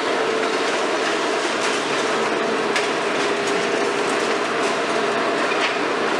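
Hitachi 350-based KMC 400 high-reach demolition excavator at work: a steady mechanical din with a faint steady hum, broken by scattered clicks and crackles from the demolition.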